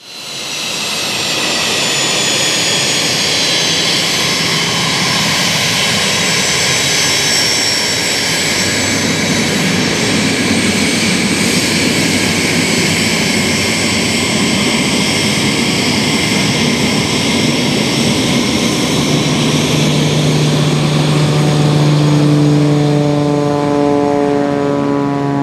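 Learjet business jet taxiing, its two rear-mounted jet engines whining over a steady rush, mixed with a propeller engine running close by. The high whine falls slowly in pitch; about 19 s in a steady low drone joins, its overtones climbing near the end.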